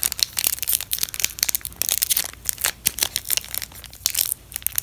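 Foil Pokémon trading-card booster pack wrapper crinkling and crackling as it is torn open and handled by hand, a dense, irregular run of sharp crackles.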